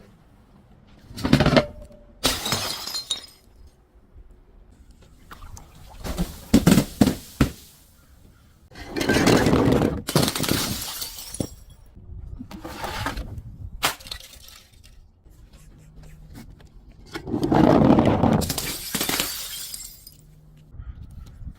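Glass bottles breaking and being crushed, in about six separate bouts of sharp cracks and crunching, the two longest lasting a couple of seconds each.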